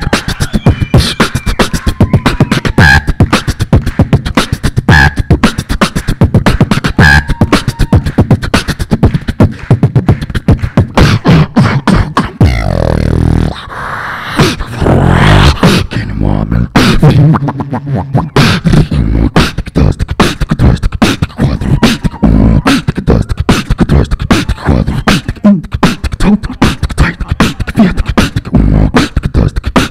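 Beatboxing into a handheld microphone: a fast, dense beat of vocal kick, snare and hi-hat sounds. About halfway through, the beat gives way for a few seconds to held low bass tones, then the fast beat comes back.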